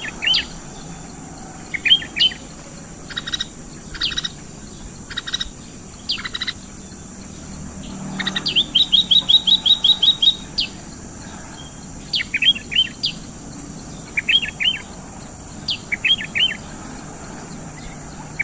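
Sooty-headed bulbul (kutilang) singing: short phrases of quick rising notes every second or two, with a fast run of about a dozen repeated notes near the middle.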